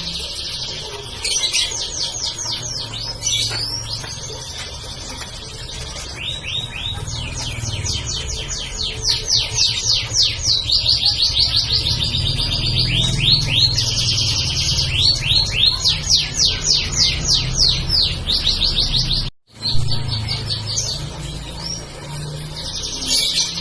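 Domestic canary singing a long, almost unbroken song of rapid trills, fast runs of repeated high sweeping notes, over a low background rumble. The song breaks off for an instant about three-quarters of the way through.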